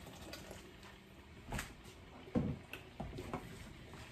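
A wooden spatula knocking and scraping in a wok as dinuguan, a thick pork blood stew, is stirred. There are a few separate knocks, the loudest a thump a little past halfway, then a quicker run of taps near the end.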